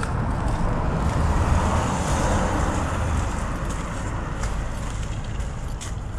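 Road traffic: a passing motor vehicle's noise swells about a second in and fades out over the next two seconds, over a steady low rumble.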